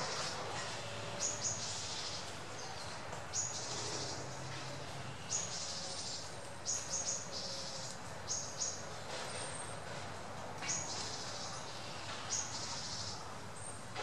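Short, high-pitched chirps at irregular times, roughly every second or two, over a steady outdoor hiss.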